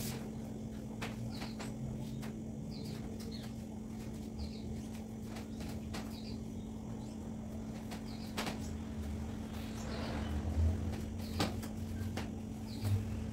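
A damp cloth wiping a tabletop, heard as faint rubbing with a few light knocks, over a steady low hum.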